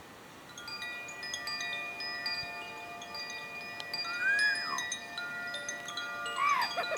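Chimes ringing, many overlapping sustained notes struck one after another, with a short high sliding sound about four seconds in and another near the end.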